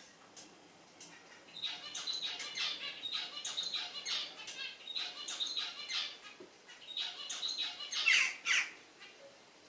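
Western jackdaws calling: a rapid, chattering run of short harsh calls starts about a second and a half in. It ends with two louder calls that slide down in pitch near the end.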